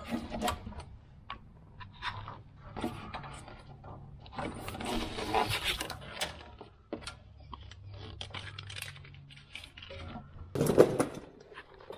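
Old wiring and a plastic line being pulled and worked free along a pickup's steel chassis rail by hand: scattered scrapes, rustles and clicks, with a longer scraping stretch about halfway and a louder knock near the end.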